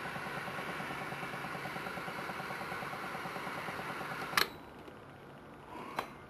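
Hydroxy (oxyhydrogen) generator running, a double-helix stainless steel electrolysis cell in KOH solution at 12 volts, making a steady, finely rhythmic fizzing hum. It stops with a click about four and a half seconds in, and a second click follows near the end.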